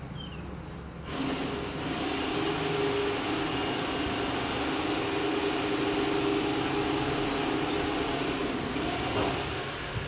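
A motor running steadily, a hiss with a low hum, starting abruptly about a second in and stopping shortly before the end.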